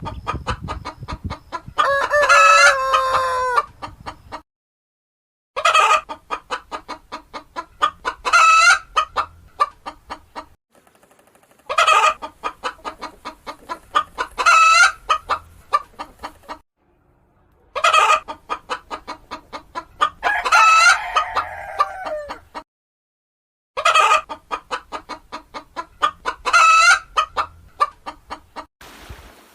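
Chickens clucking in quick runs, each with a long drawn-out call in its middle. The same pattern comes about five times, cut apart by short silences.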